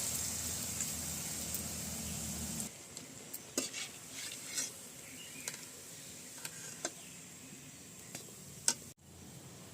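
Gram-flour-battered bitter gourd leaves frying in hot oil, a steady sizzle that cuts off suddenly between two and three seconds in. After that come scattered light clinks and knocks of a utensil against the pan.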